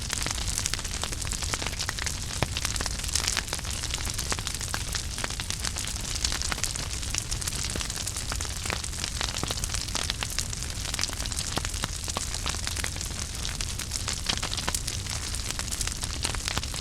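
Wood fire crackling in a fireplace: many irregular small pops and snaps over a steady hiss and a low rumble of burning.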